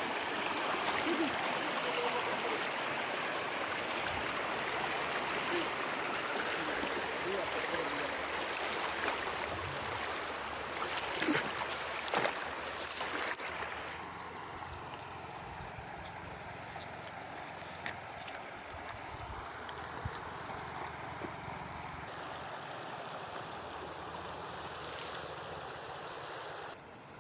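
Shallow stream rushing and splashing over rocks, a steady noisy flow. About halfway through it drops to a quieter, softer rush.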